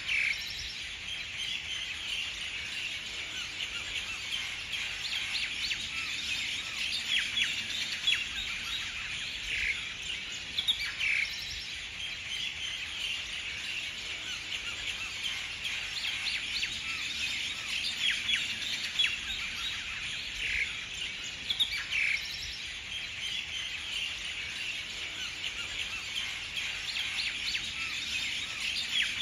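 Birds chirping and calling in a dense, continuous chatter, with a few louder single calls standing out now and then.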